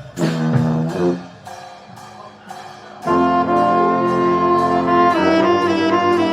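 Brass band with saxophones playing live: a short punchy chord, a quieter lull, then about three seconds in the horns come in together with a loud held chord that shifts about two seconds later.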